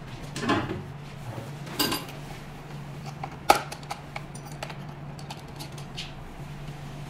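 Hard plastic parts of a roller handpiece clicking, scraping and knocking as its plastic cover is taken off, with one sharp click about three and a half seconds in, over a steady low hum.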